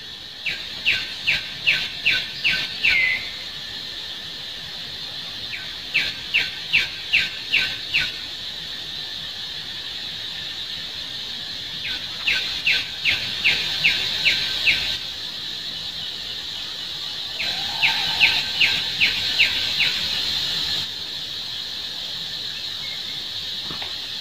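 Four runs of short, sharp, high animal calls, six or seven notes each at about three a second, over a steady high insect drone.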